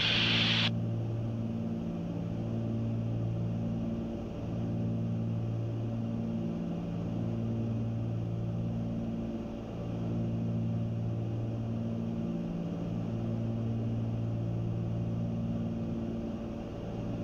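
Cessna 310's two piston engines and propellers droning steadily at cruise power, with a slow wah-wah swell and fade every few seconds: the beat of the two propellers turning at slightly different speeds. A hiss cuts off just under a second in.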